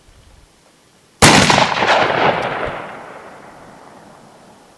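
A single shotgun blast about a second in, loosing a spread of shot from a cylinder bore barrel, followed by a long echo that fades over a few seconds.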